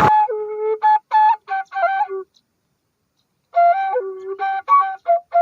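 Music: a solo flute melody of short notes in two phrases, with about a second of silence between them.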